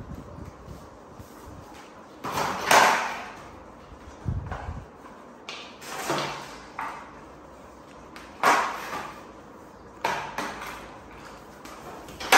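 A toddler's balance bike knocking and clanking against a tiled floor as it is pushed and tipped about, a sharp knock every second or two, each ringing briefly.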